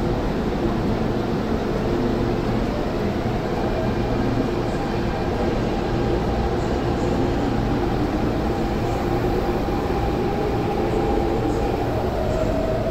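MTR Tung Chung Line electric train moving along an underground station platform behind platform screen doors: a steady rumble with a motor whine running through it.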